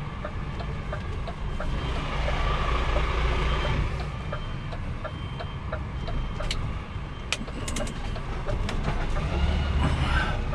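Truck's diesel engine running steadily while it reverses, with its reversing alarm giving short, regular beeps, a few every second. A handful of sharp clicks come around the middle.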